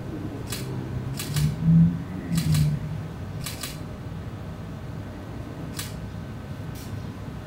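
Camera shutter clicking about six times at irregular intervals, several as quick double clicks, over a steady low background. Two short, louder low sounds come between the second and third clicks.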